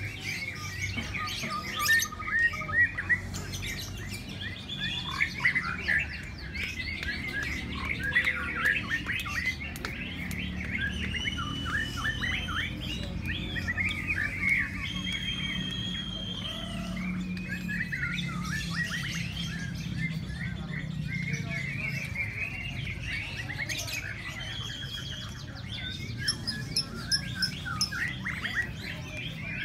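Lovebird song: a continuous rapid chatter of high chirps and short trills, with a few louder, sharper chirps near the start and again near the end, over a low background hum.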